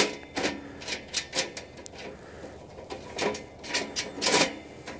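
Irregular light metallic clicks and scrapes from a stainless-steel folding grill's side panel being seated in its slots and its bolt being turned by hand.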